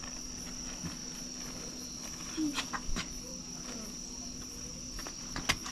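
Crickets chirping in a steady high trill, with a few sharp clicks around the middle and near the end.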